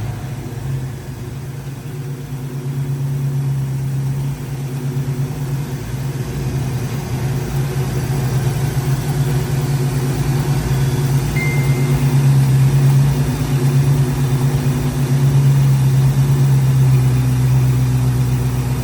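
Carbureted Ford engine idling steadily, freshly fitted with a new carburetor; the idle dips slightly about a second in, then holds steady.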